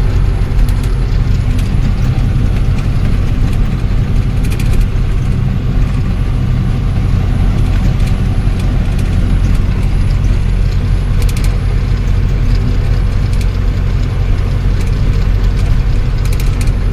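Ashok Leyland 1214 truck's diesel engine running steadily at highway cruise, heard inside the cab, with a few faint clicks.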